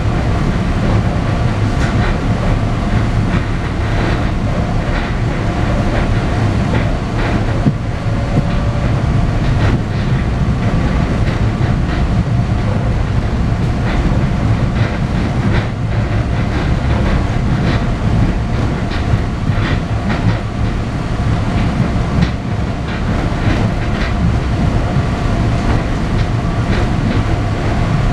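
Interior of a PATCO rapid-transit railcar running at speed: a steady rumble with a faint steady tone over it and irregular clicks of the wheels passing over the track.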